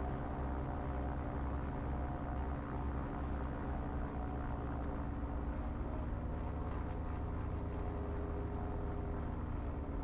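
Diamond DA42's twin propeller diesel engines running steadily at low taxi power, a continuous droning hum with a slight wavering in pitch in the second half.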